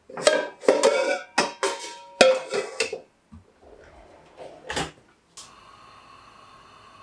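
Iron frying pans and stainless pots clanking and ringing against each other as an iron wok is lifted out of a crowded drawer: a quick run of metal knocks over about three seconds. A single knock comes near five seconds in, then a steady faint drone starts.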